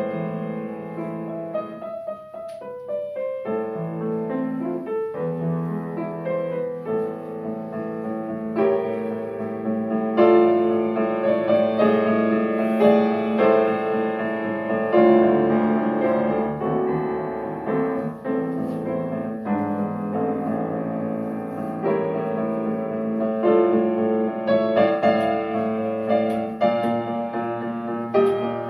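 Solo piano playing a classical piece, a steady run of notes that grows louder through the middle.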